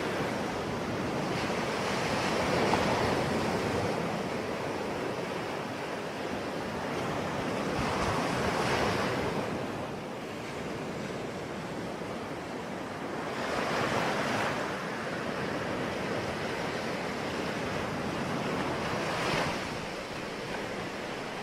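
Sea waves breaking in a steady wash of surf, swelling louder as each wave comes in, four times about every five to six seconds.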